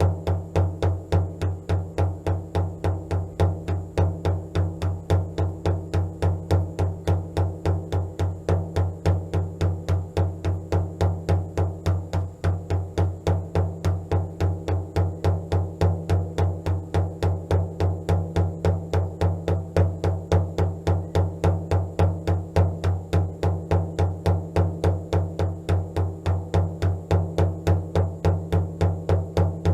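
Meditation drumming: a low drum beaten in a steady, even pulse of about three strokes a second, without a break.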